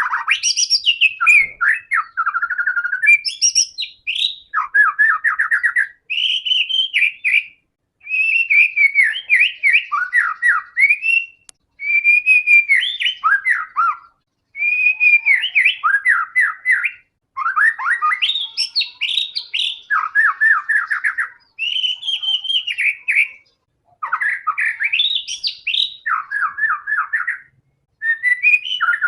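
White-rumped shama (murai batu) in full, vigorous song: a steady string of loud, varied phrases of whistles and quick repeated notes, each a second or two long, with brief pauses between them.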